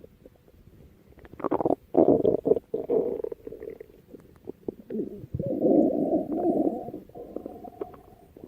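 A person's stomach rumbling in irregular bursts: a run of short rumbles about a second and a half in, then a longer, steadier rumble from about five to seven seconds in that fades out.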